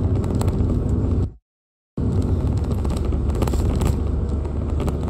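Steady rumble of a car on the move heard inside its cabin, engine and road noise low and constant. It cuts out completely for about half a second a little over a second in, then resumes.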